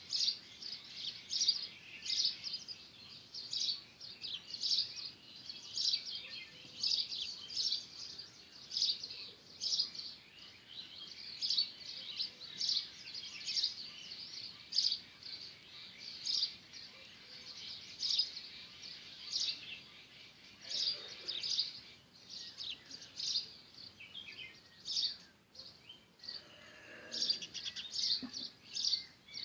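House sparrows chirping: a steady run of short, high chirps, one or two a second, with a couple of brief lower-pitched sounds late on.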